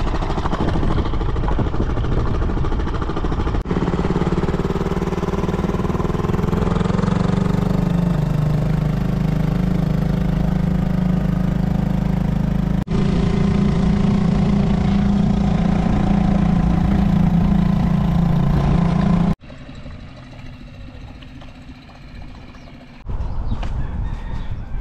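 Small Honda four-stroke outboard on an inflatable dinghy running at a steady speed, pushing the dinghy along. The engine sound ends about three-quarters of the way in, leaving much quieter sounds.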